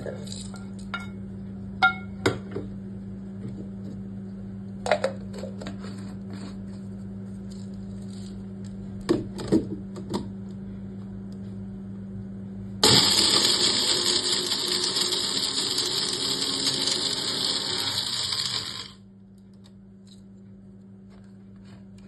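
Whole spices (cloves, cardamom, peppercorns) clicking and clinking as they are tipped from a pan into a small electric mixer-grinder jar. About thirteen seconds in, the mixer grinder's motor starts loud and runs for about six seconds, grinding the spices coarsely, then cuts off suddenly.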